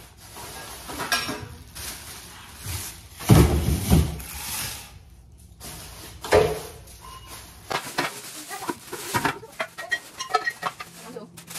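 Flat-pack dining table parts being handled: a heavy thump about three seconds in, another knock about six seconds in, then a run of small quick clicks and rattles near the end.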